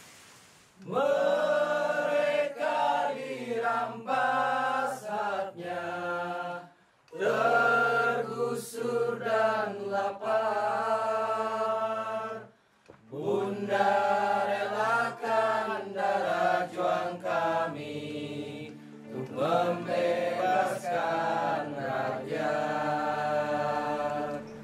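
A group of young men and women singing a protest song together in unison, the phrases breaking off briefly twice.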